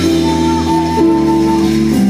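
Live Brazilian instrumental band playing a baião: a melody in long held notes over electric bass and keyboard chords, with drums and percussion.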